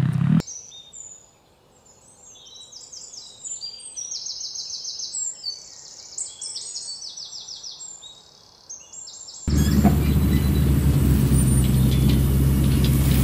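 Songbirds chirping and trilling over a quiet background, after a motorcycle engine sound cuts off right at the start. About nine and a half seconds in, a loud, steady low drone with a buzzy hum cuts in abruptly.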